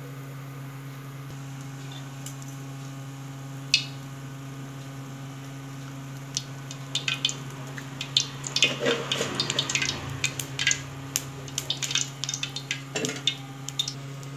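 Cooking oil heating in a black iron kadai, starting to crackle and pop about six seconds in, with the crackles coming thickest in the second half as the oil gets hot.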